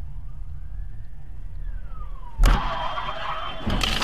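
Dash-cam sound from inside a car: steady low engine and road rumble with a faint tone that rises and then falls. About two and a half seconds in comes a sudden loud, harsh noise as an ambulance van swerves at the car, and another loud burst starts near the end.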